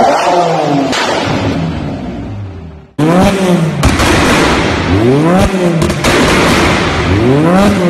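A BMW E46's engine revving on a chassis dyno, its revs falling away and fading out. Then a loud modified car exhaust as another engine is blipped up and down several times, with sharp backfire bangs and pops among the revs.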